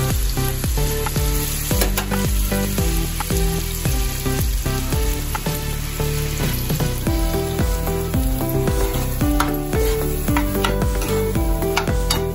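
Bell pepper pieces sizzling in a hot frying pan as a thick spice paste is poured over them and stirred in with a spatula. Background music with a steady beat plays throughout.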